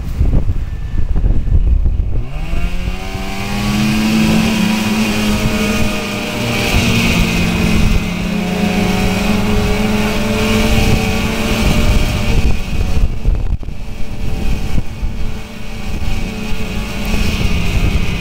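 Snowmobile engine running under the rider, its pitch rising as it speeds up over the first few seconds, then holding steady while cruising.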